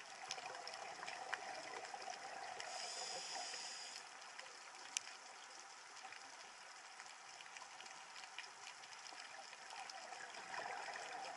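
Faint underwater ambience picked up by an underwater camera: a soft, even hiss with scattered small clicks and crackles, and one sharper tick about five seconds in.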